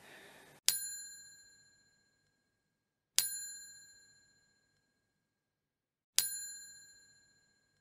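A bell-like ding struck three times, about three seconds apart. Each strike rings on a few high pure tones and fades out over about a second. The strikes are identical and the gaps between them are dead silent, the mark of an edited-in sound effect.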